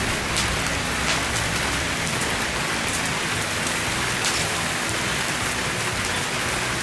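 Split logs burning in a kettle grill's bowl: a steady hiss with scattered sharp crackles.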